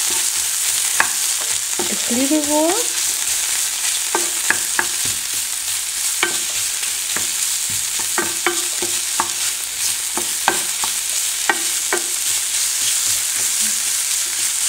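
Sausage pieces (sucuk and poultry sausage) sizzling steadily in a non-stick frying pan while a wooden spatula stirs them, with many short knocks and scrapes of the spatula against the pan.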